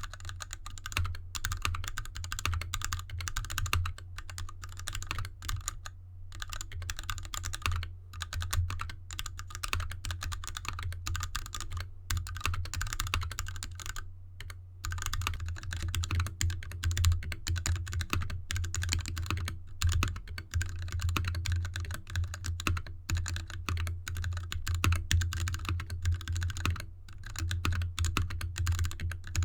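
Continuous fast typing on a GK64X mechanical keyboard with lubed Gateron Red linear switches, DSA keycaps and an anodized aluminium case, a dense stream of key clacks. The typing pauses briefly about halfway through, where the keyboard moves from an artificial grass mat onto a plain desk mat.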